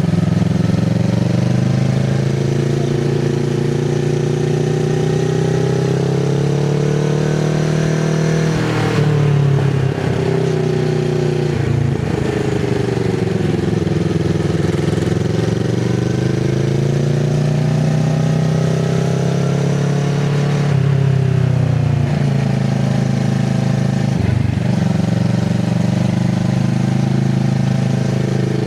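Kawasaki Z650RS parallel-twin running through an IXIL MK2 full aftermarket exhaust with the dB killer fitted, under way. The engine note climbs slowly and falls several times, with sharp drops about nine and twenty-one seconds in.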